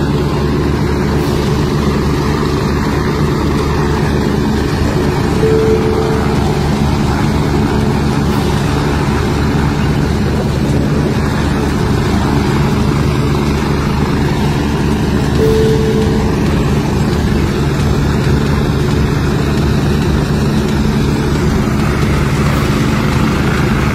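Helicopter running on the ground with its rotor turning: a steady, loud engine hum with a fast low beating of the blades.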